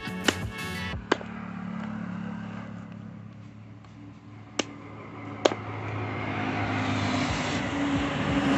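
A motor vehicle's engine drawing closer and getting louder over the last few seconds, over a steady low hum. Three sharp knocks come about one, four and a half and five and a half seconds in.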